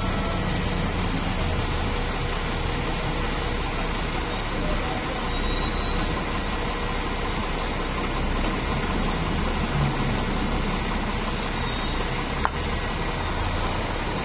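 Diesel engine of a Zoomlion QAY200 mobile crane running steadily with a low hum as the crane creeps up onto a low loader trailer deck. A single sharp click near the end.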